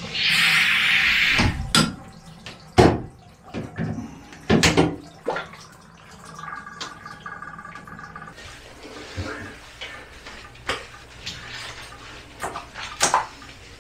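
Water spraying into a bathtub for under two seconds, then a series of sharp knocks and clatter against the tub during a dog's bath, with a short high steady squeak midway.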